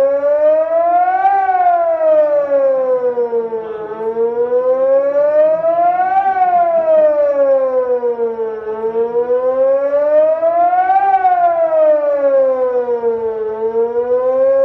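Electronic civil-defence siren sounding the German 'Warnung der Bevölkerung' public-warning signal in a test alarm: a loud howl rising and falling in pitch, one full rise and fall about every five seconds.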